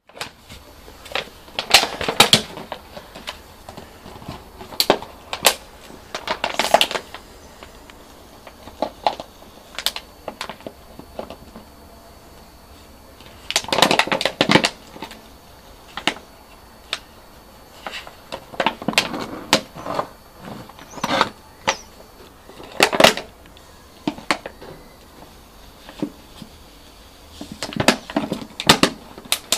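Puppy chewing and pawing an empty plastic PET bottle: irregular crinkling and crackling of the plastic, in bursts of about a second every few seconds, with quieter gaps between.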